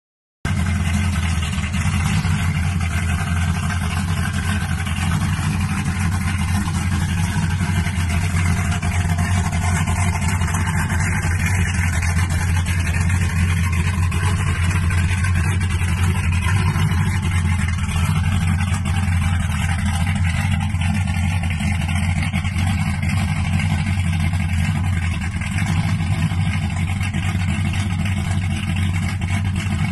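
Lifted square-body Chevrolet pickup's engine idling steadily, its sound mostly low-pitched and unchanging.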